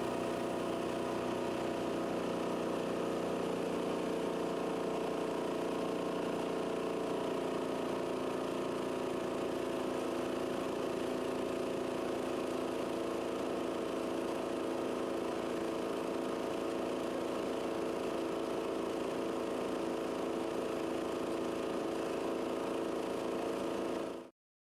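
An engine running steadily at idle, with an even, unchanging tone that cuts off suddenly near the end.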